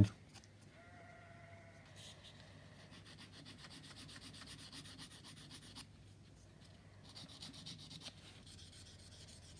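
Sanding stick rubbing along the thin edge of a plastic scale-model part, faint scraping strokes in two spells, a longer one from about two seconds in and a shorter one near the end.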